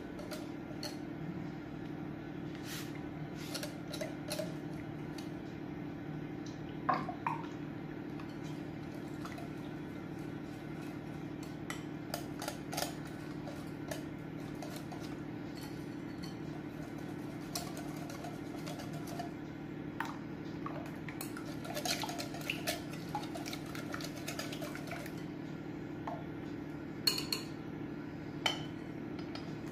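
Runny far breton batter poured from a glass mixing bowl into a glass baking dish, with a metal utensil scraping and clinking against the glass now and then, a few sharp clinks near the end. A steady low hum runs underneath.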